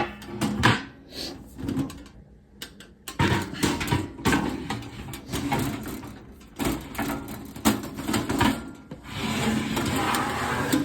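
Knocks, clicks and rattles of a small steel-and-plastic greenhouse cabinet being handled and set onto its stand, with irregular bumps throughout and denser handling noise near the end.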